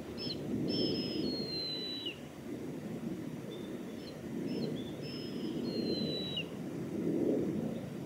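Juvenile mountain hawk-eagle calling: two long, thin, high whistles. Each opens with a short note, is held, then steps down in pitch and ends in a quick downward slur. The second comes about two seconds after the first.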